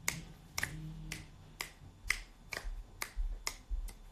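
Fingers snapping repeatedly, sharp separate snaps at roughly two a second, coming a little quicker in the second half.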